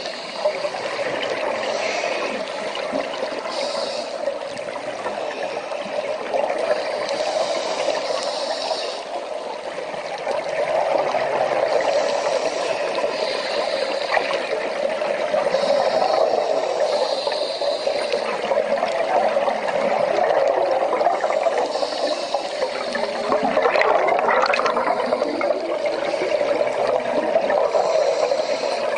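Underwater sound picked up by a diver's camera: steady rushing and bubbling water, with short hissing bursts every second or two.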